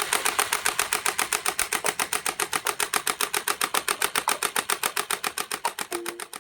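Electric AK47-style gel blaster firing on full auto: a rapid, even rattle of about nine shots a second that stops just before the end, as music comes in.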